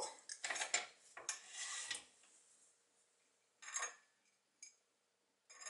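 Metal handling sounds: short clinks and scrapes as lathe parts are worked by hand and a copper pipe is slid off the lathe's headstock spindle, a cluster in the first two seconds, then a few single clicks near the end.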